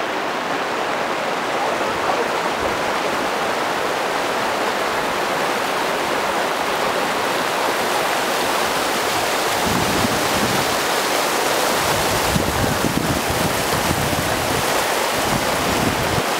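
Glacial meltwater stream rushing over a stony bed, a steady hiss of water. Low gusts of wind on the microphone come and go in the second half.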